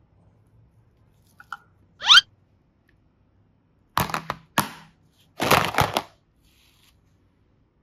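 A brief rising whistle-like glide about two seconds in, then small hard plastic flower-shaped boxes clicking and clattering against each other in a plastic basket as one is picked up, in a few short bursts in the second half.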